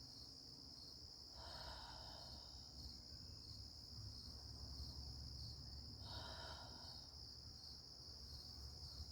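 Faint, steady high-pitched chorus of crickets with a slight pulse. Two soft whooshes stand out, about a second and a half in and again about six seconds in.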